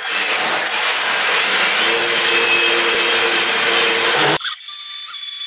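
A D3542 1450 kV outrunner brushless motor drives a 3D-printed RC jetboat's water jet under heavy load while the boat is held in place. It makes a loud rush of churned water with a high, steady whine. A little over four seconds in, the throttle comes back and the sound drops to a quieter, steady whine with the motor still turning.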